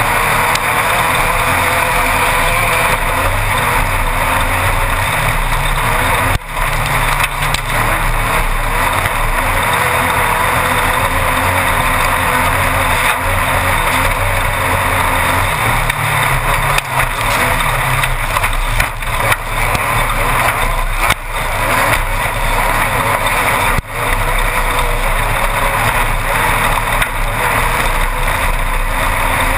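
Cockpit sound of a Class 1-1600 desert race car at speed: its air-cooled 1600 cc Volkswagen engine running hard under steady noise from the rough ground and the wind. The loudness drops sharply for a moment a few times.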